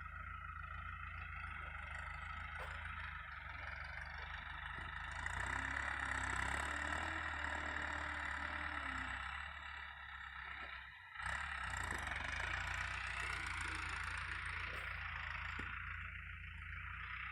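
Tractor engine running steadily under load while ploughing. It grows louder about five seconds in and dips briefly about eleven seconds in.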